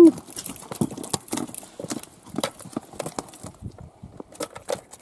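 A freshly landed trout flopping on a boat's floor: irregular slaps and knocks, with a burst of them again near the end.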